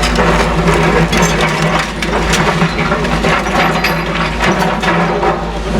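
Caterpillar excavator's diesel engine running steadily under load while demolition rubble crunches, cracks and clatters in many quick irregular knocks.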